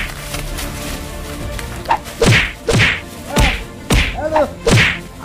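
Punches landing in a staged fist fight, heard as a run of sharp whacks. There is one at the very start, then about five more in quick succession, roughly half a second apart, from about two seconds in. Short pitched cries come between the blows.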